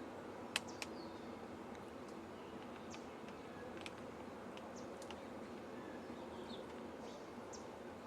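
Faint, steady buzzing of insects, with a few scattered sharp clicks.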